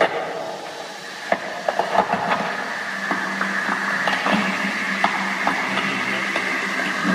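A stage show's soundtrack playing a steady droning hum with hiss, a rumbling, train-like effect, with scattered clicks and knocks in the first few seconds. The drone settles in about three seconds in.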